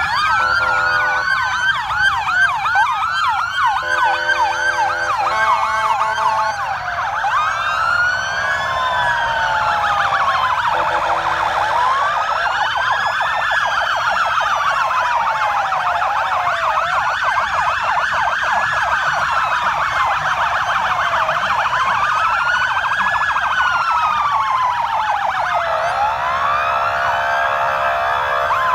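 Several police sirens wailing out of step with one another from a convoy of patrol vehicles. In the first few seconds there is a fast yelp, then slower rising-and-falling wails, with steady horn-like blasts now and then.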